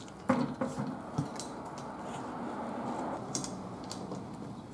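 A tyre pressure sensor being worked out past the tyre bead by hand: a few sharp clicks and knocks in the first second, then a steady rubbing and scraping of rubber against the sensor, which eases off about three seconds in.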